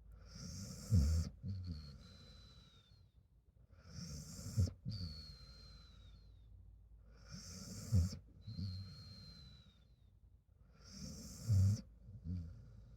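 A sleeping dog snoring in slow breaths about three to four seconds apart, four in all. Each breath is a low snore followed by a thin, high whistle from its nose that falls slightly in pitch.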